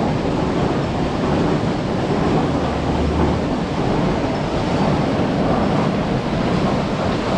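Steady, loud rushing noise of carrot-washing machinery running with water, a drum washer and conveyors, without any clear rhythm or tone.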